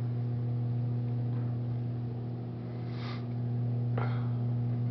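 A steady low hum held at one pitch, with two faint short breath-like sounds about three and four seconds in.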